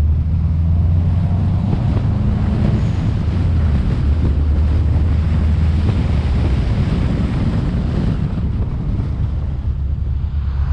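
Wind buffeting the microphone of a roof-mounted action camera on a moving car, over the steady low drone of the car's engine and road noise.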